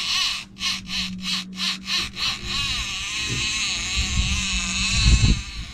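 Fishing reel paying out line as live bait is lowered to the bottom: rapid clicking about four times a second, then from about two and a half seconds in a continuous whirring as the spool runs freely, with a couple of low thumps near the end.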